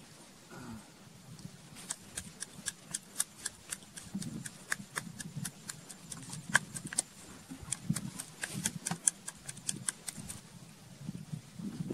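Wooden pestle pounding in a small wooden mortar: a steady run of sharp knocks, several a second, with duller thuds under them. They start about two seconds in and stop shortly before the end.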